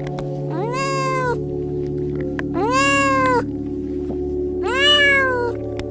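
Domestic cats meowing: three long meows about two seconds apart, each rising in pitch and then slowly falling away.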